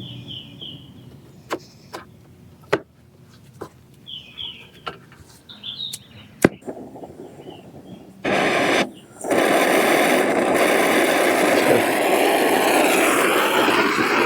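A brazing torch running with a steady loud rushing roar, starting about eight seconds in and dropping out briefly just after. It is heating a brazed copper refrigerant line joint to unsweat it from the condenser coil. Before it, a few sharp metallic clicks and birds chirping.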